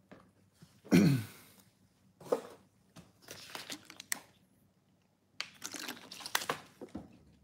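Foil wrapper of a trading-card pack crinkling and tearing as it is handled and opened, in several short bursts. A brief voice sound, like a throat clear, about a second in is the loudest thing.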